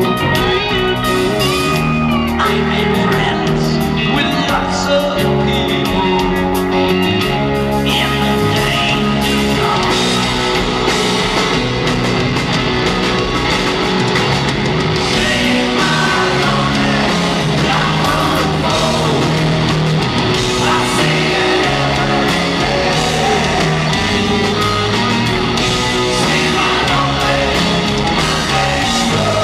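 Live rock band playing loudly, with a male lead vocalist singing over sustained guitar and bass chords, as heard from the audience in a large hall.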